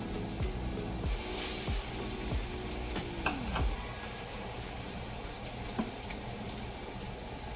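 Plantain slices frying in hot oil, a steady sizzle, with a louder burst of hiss just after a second in. Background music plays over the first half.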